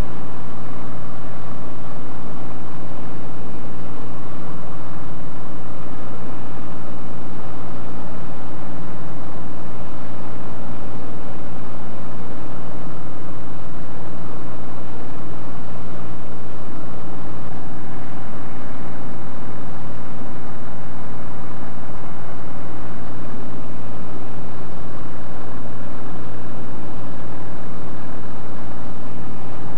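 Light high-wing aircraft's engine and propeller running steadily at cruise, heard from inside the cabin.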